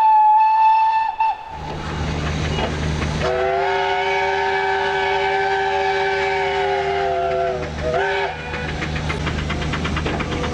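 Steam locomotive whistles. A loud single-note whistle sounds for about a second and cuts off. Over the steady hiss and rumble of a working locomotive, a multi-note chime whistle is then held for several seconds as a chord, sagging slightly in pitch as it dies away, followed by a short second toot.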